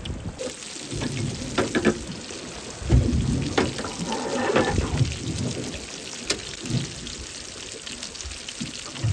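Fish sizzling in a frying pan, a steady hiss, with several knocks and clatters of a utensil against the pan.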